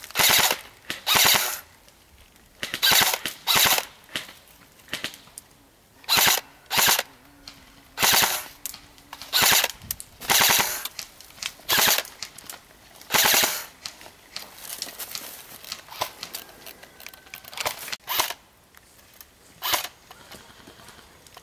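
Airsoft rifles firing short bursts of automatic fire, a burst every second or two. The bursts grow fainter in the last few seconds.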